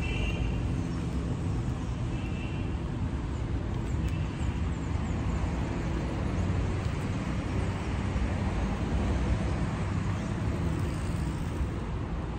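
Steady road traffic: cars passing with a continuous low rumble, and a few short high-pitched tones in the first few seconds.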